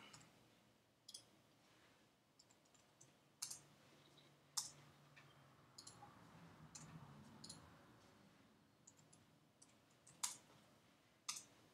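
Faint, irregular clicks of a computer keyboard and mouse: single keys and buttons pressed about a dozen times, scattered through near silence, with a few closer together in the middle.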